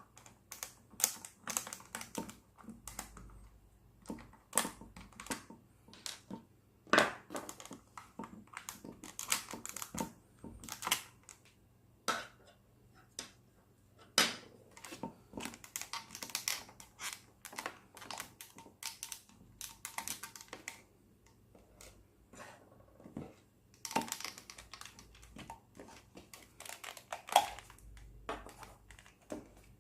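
Irregular clicks, taps and knocks of a hair dryer's plastic housing and parts being handled and taken apart, coming in uneven clusters with short gaps.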